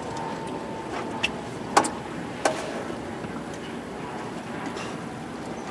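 Steady wind and water noise on an open pontoon boat, broken by three sharp knocks in the first half, the middle one loudest.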